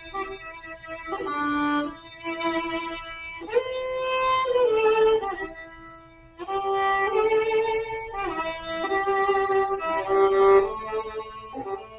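Violin playing a slow melody of long held notes, some gliding from one pitch to the next, with a brief softer pause about halfway through.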